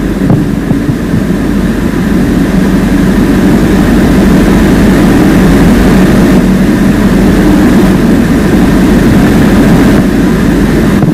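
Loud, steady mechanical drone with a low hum, a little louder in the middle.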